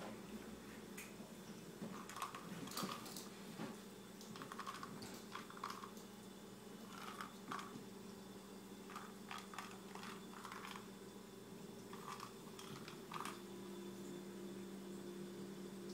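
Small plastic treat ball holding a few papaya treats, pushed and rolled by a rabbit: irregular light clicks and taps in short clusters. A steady low hum runs underneath and grows a little stronger near the end.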